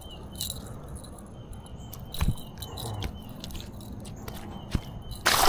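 Handling of a freshly caught bass and its topwater lure: scattered light clicks and knocks over a faint high chirp that repeats about three times a second, then a sudden loud burst of noise near the end.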